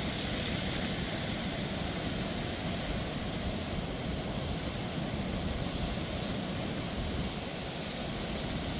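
Flood-swollen Little Pigeon River rushing past, a steady noise of raging high water.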